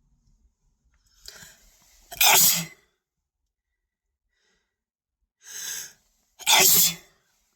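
A person sneezing twice, about four seconds apart. Each loud, sudden sneeze comes after a shorter, quieter gasp.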